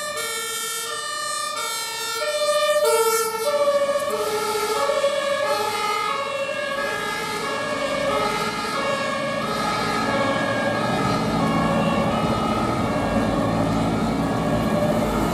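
German ambulance's two-tone siren (Martinshorn) alternating between two notes as the vehicle passes. The pitch drops about three to four seconds in as it goes by, and the siren then fades into the distance while road traffic noise grows louder.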